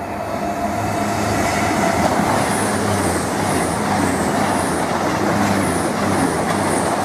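A Class 390 Pendolino electric train passing at speed close by: a steady rush of wheels on rail and air that builds over the first second. A high hiss repeats about twice a second through the middle.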